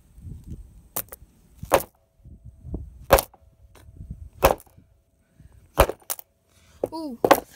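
A hammer repeatedly striking a plastic fidget spinner on a stone slab: about seven sharp blows, roughly one a second, with two in quick succession near the end. The blows knock the spinner's centre bearing out and bend it.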